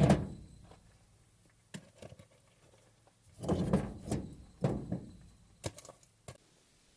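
Irregular thuds and knocks: a heavy thud at the start, a cluster of thuds between about three and a half and five seconds in, and a few sharp clicks in between.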